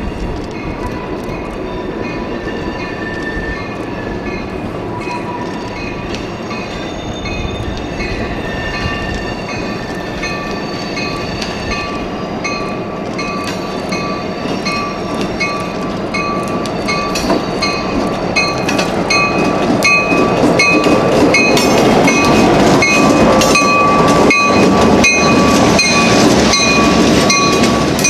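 Diesel freight locomotive approaching slowly, growing steadily louder, followed by tank cars rolling past. Wheels squeal thinly against the rails and the clicks of wheels over rail joints come faster near the end.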